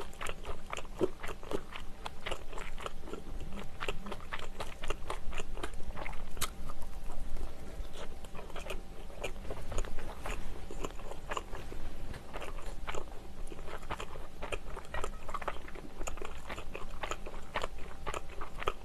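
Close-miked chewing of a sausage-and-onion bread roll: soft, irregular crackles and crunches of the golden crust as she bites and chews.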